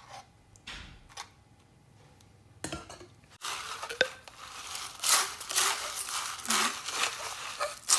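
A few soft taps of a spoon at a plastic cup, then from about three and a half seconds in a plastic straw stirring crushed ice in a plastic cup: a quick run of ice rattling and scraping.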